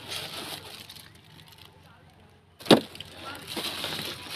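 Woven plastic sack rustling and crinkling as a caught fish is put into it, with one sharp crack nearly three seconds in.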